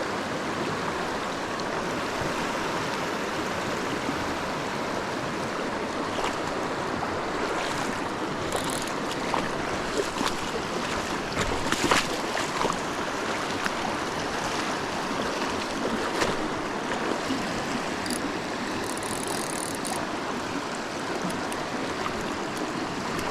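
Shallow creek water rushing steadily over riffles, with a few short knocks and clicks around the middle.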